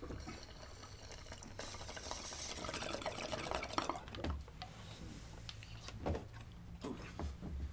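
Water bubbling in a bong as a hit is drawn through it, a steady gurgle that is strongest from about one and a half to four seconds in and then tails off.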